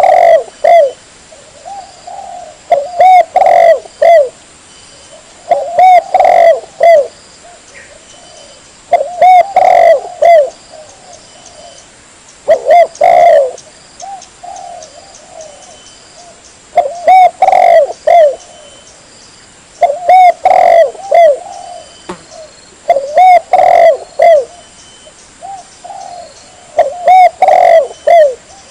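Spotted dove (tekukur) cooing its song over and over: a phrase of several low coos about every three to four seconds, loud enough to clip. It is a recorded lure call for calling doves in.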